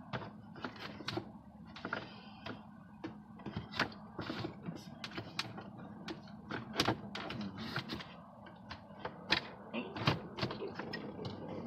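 Plastic dashboard trim being worked loose by hand, giving irregular clicks, knocks and creaks over a steady low hum.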